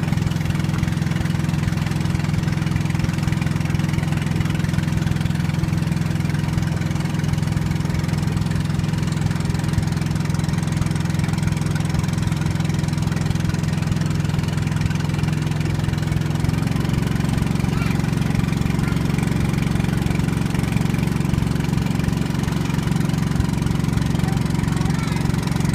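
Motor of a small wooden boat running steadily under way, a constant low hum. Its note shifts slightly about two-thirds of the way through.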